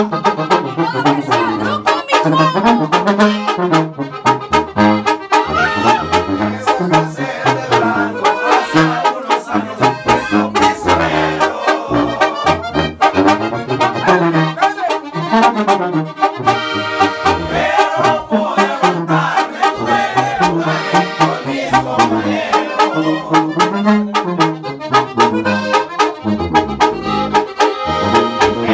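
Live banda music: a sousaphone plays a bouncing bass line in a steady beat under accordion and brass.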